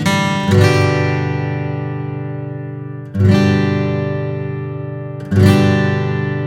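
1977 Martin D-45 acoustic dreadnought guitar with East Indian rosewood back: a few quick picked notes, then three full chords strummed about two and a half seconds apart, each left to ring out and slowly fade.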